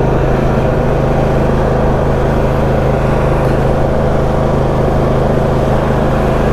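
Husqvarna YTA22V46 lawn tractor's 22-horsepower V-twin engine running steadily at full throttle while the tractor drives along.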